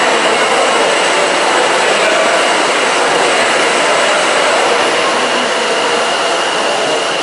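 Hydraulic turbine test stand running: a loud, steady rushing noise of water and machinery with a faint steady high whine.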